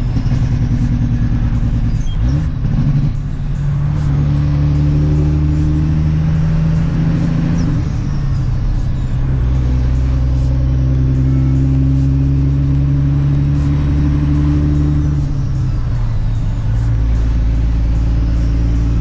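Dump truck's diesel engine heard from inside the cab while driving, a steady hum whose pitch steps down and climbs again a few times as the truck changes gears.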